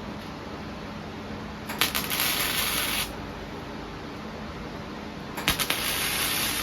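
MIG welder laying tack welds on sheet steel: two bursts of crackling arc about a second long, one about two seconds in and one near the end, each starting with sharp pops.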